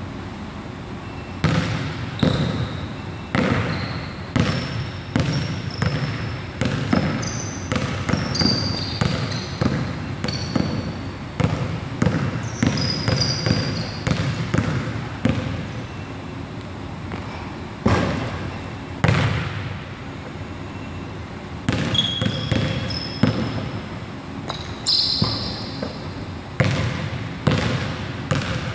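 Basketball being dribbled on a hardwood gym floor: repeated bounces, irregular and roughly once a second, echoing in the large hall. Short high squeaks of sneakers on the floor come between them. The bouncing starts about a second and a half in and eases off twice in the middle.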